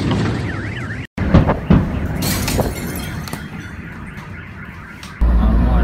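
A car alarm wailing up and down, set off by a nearby explosion. After a cut, a couple of sharp bangs and a long rushing noise follow, and about five seconds in a steady low rumble of a moving car starts suddenly.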